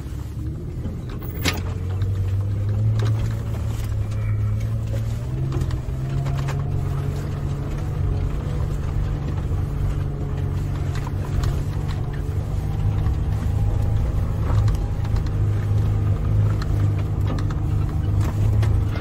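Toyota FJ Cruiser's 4.0-litre V6 engine running steadily off-road, its pitch slowly rising and falling with the throttle. There is one sharp click about a second and a half in.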